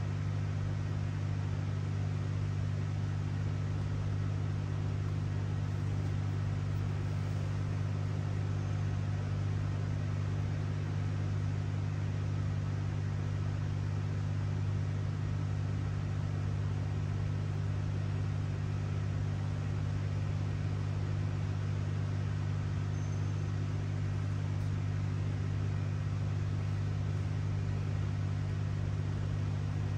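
Steady low hum that stays constant and unchanging, with a faint hiss above it.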